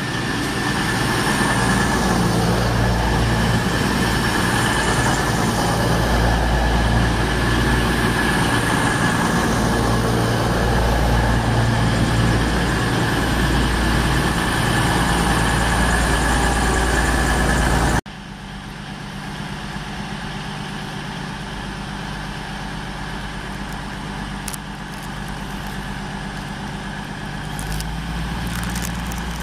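Class 222 Meridian diesel multiple unit running alongside the platform close by: a steady, loud rumble of its underfloor diesel engines and wheels on the rails, with a steady high whine. After a sudden cut about 18 seconds in, the Meridian stands at the platform with its diesel engines idling, quieter.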